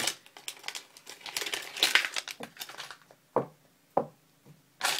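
Packaging crinkling and rustling in irregular bursts as a log of snuff cans is handled, with a couple of separate sharp knocks in the middle and another burst of crinkling near the end.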